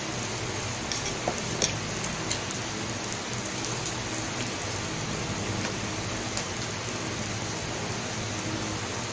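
Pork and sausages sizzling on an electric grill plate: a steady crackling hiss, with a few light clicks over it.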